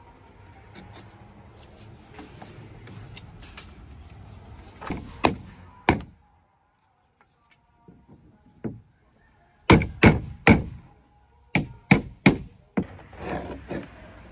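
Hammer blows on wood, the planking of a wooden boat being built: light clicks and taps at first, then three sharp knocks about five seconds in, and after a brief silence a single knock followed by two quick groups of three loud blows.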